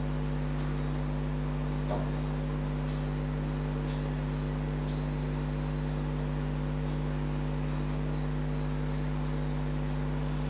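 A steady low mechanical hum with several fixed pitches, unchanging throughout, with a few faint clicks of a fork against an aluminium pan as noodles are tossed.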